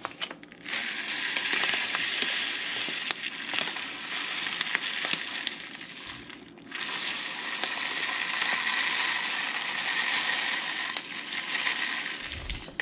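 Dry long-grain rice being poured from its bag into a measuring cup and into a crock pot, a steady rattling hiss. It comes in two long pours, one per cup, with a short break about six seconds in.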